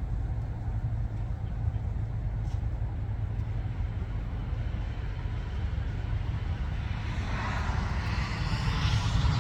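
Steady low rumble of a running vehicle, with a hiss that rises in from about seven seconds in.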